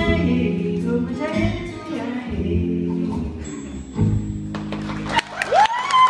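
Song with a singing voice over instrumental accompaniment. The accompaniment stops about five seconds in, and a high sung note rises just before the end.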